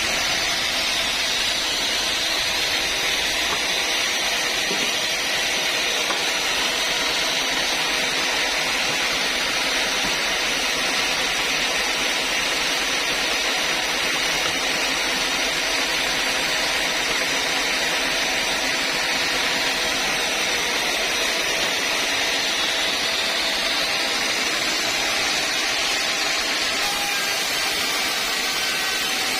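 Sawmill saw running steadily, giving a continuous even noise with no change in level.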